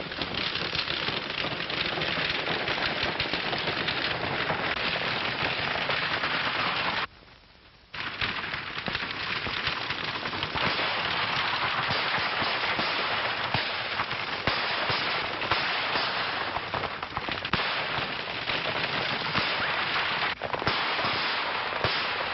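Dense, rapid gunfire of a western shootout, many shots overlapping into a continuous crackle, on a 1930s film soundtrack. It breaks off for about a second around seven seconds in, then carries on.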